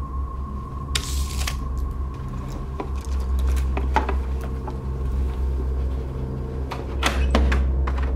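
A steady low hum with small objects being handled over it: scattered clicks, light knocks and brief rustles, the busiest about a second in and again near the end.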